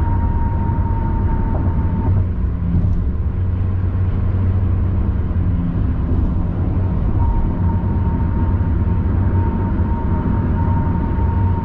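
Steady road and engine rumble inside a car cruising at highway speed, with a thin high whine that drops out for a few seconds near the start and then returns.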